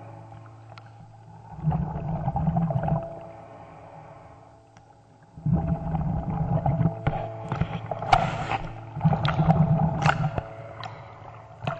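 Muffled water sloshing and churning heard through a submerged camera, coming in three surges with sharp clicks, over a faint steady hum.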